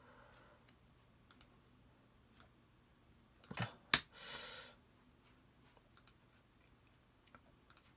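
Computer mouse clicking now and then over a steady low hum, with a sharp click about four seconds in followed by a short rustle.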